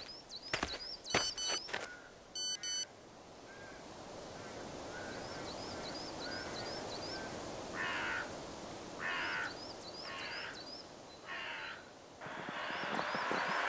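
Footsteps on a tarmac lane, then a short double electronic beep like a phone alert. Small birds chirp and crows caw four times in the second half. Near the end a car approaches, growing steadily louder.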